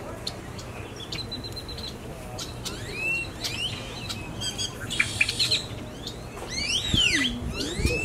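Wild songbirds calling: a busy mix of sharp chip notes and short whistled notes that swoop up and then down, with a quick rattling series about a second in. The calls grow busier and louder around five seconds in and again near the end.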